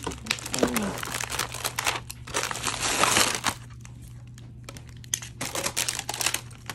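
Packaging being handled and crinkled in irregular bursts of crackling and rustling as a product is unwrapped, easing off for a couple of seconds around the middle.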